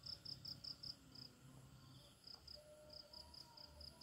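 Faint, high-pitched insect chirping: short pulses about five a second, pausing for about a second partway through before starting again.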